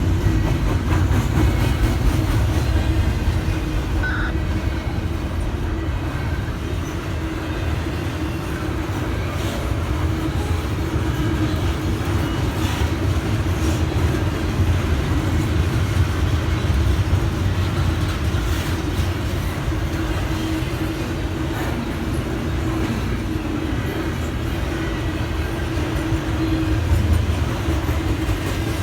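Norfolk Southern intermodal freight train rolling past: a steady rumble of wheels on rail with a low, steady hum.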